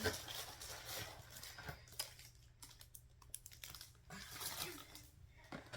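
Packaging being handled: crinkling and rustling with scattered light clicks and taps, coming and going irregularly.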